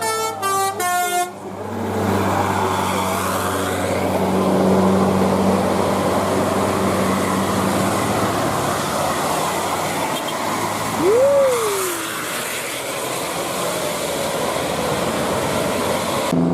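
Multi-tone telolet bus horn on roof-mounted trumpets, playing a quick run of notes that step down in pitch for about the first second, followed by a bus engine running with road noise. About eleven seconds in, a short tone slides up and back down.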